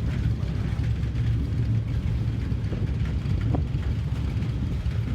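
Norfolk Southern freight train rolling slowly past, a steady low rumble.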